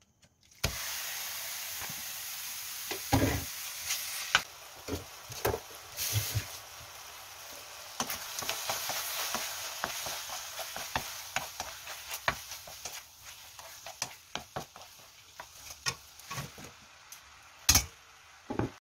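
Raw chicken pieces sizzling as they hit a hot ceramic-coated frying pan, then stir-fried with a wooden spatula: a steady sizzle that starts about half a second in and slowly dies down, with frequent clicks and scrapes of the spatula on the pan. A loud knock comes near the end.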